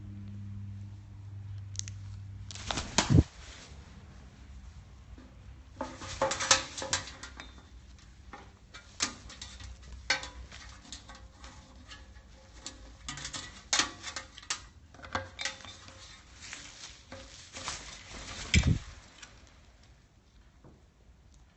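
Irregular light clicks and taps from a blue-and-gold macaw moving about on its perch stand, with two heavier thumps, one about three seconds in and one near the end. A low steady hum stops at the first thump.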